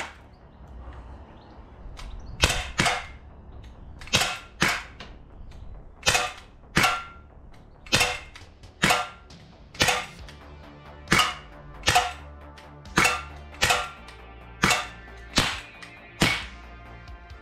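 CO2 air pistol being fired repeatedly: about seventeen sharp cracks, mostly in quick pairs, a pair every second and a half or so.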